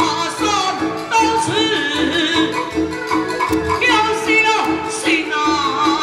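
Taiwanese opera (gezaixi) aria: a performer sings a drawn-out, wavering melodic line into a microphone over steady instrumental accompaniment, heard through the stage loudspeakers.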